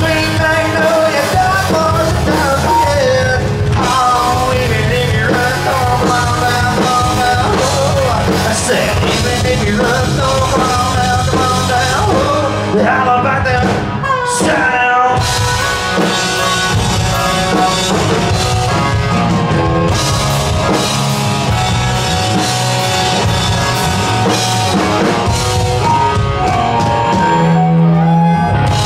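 Live Southern rock band playing an instrumental break: electric guitars, bass guitar and drum kit, with a harmonica playing a bending lead over them.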